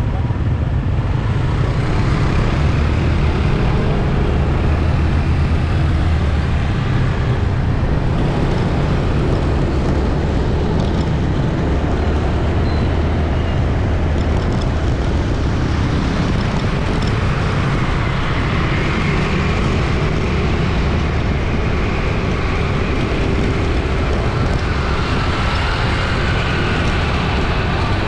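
Busy city street traffic: a continuous mix of vehicle engines and road noise, with a strong low engine rumble throughout.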